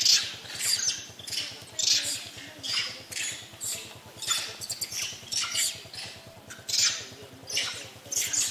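Long-tailed macaques giving short, harsh alarm calls about twice a second, a troop mobbing a python on the ground.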